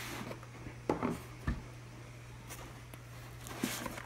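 Unboxing handling noise from a wooden keyboard half and its foam-lined cardboard box: a few knocks and rustles about a second in, a deeper thump just after, and more knocks near the end, over a steady low hum.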